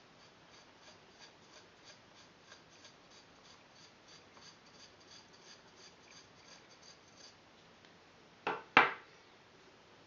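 Faint, regular light ticking, about three a second, then two sharp metallic clicks in quick succession near the end, typical of handling a GHK AK gas-blowback airsoft rifle.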